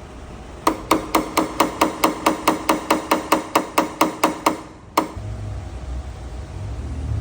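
Rapid, even tapping of a small hammer and tap-down tool on an aluminum truck tailgate, about four to five light metallic-ringing taps a second, the tap-down step of paintless dent repair that levels the high spots. The tapping stops, one more tap follows half a second later, then a low rumble sets in.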